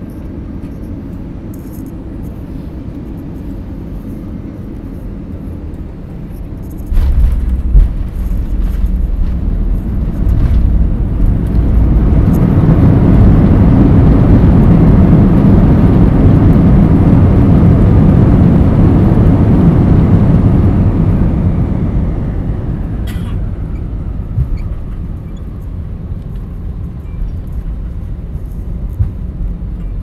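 Airliner cabin noise during a landing. Steady engine and airflow noise on final approach gives way to a sudden low rumble and a few thumps at touchdown about seven seconds in. Then a loud roar of reverse thrust builds from about twelve seconds and eases off after about twenty-one seconds as the aircraft slows on the runway.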